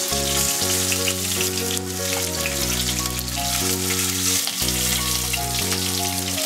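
Hot mustard oil sizzling and crackling in a kadai as fried katla fish pieces are lifted out of it. Background music with held notes changing every second or so plays along.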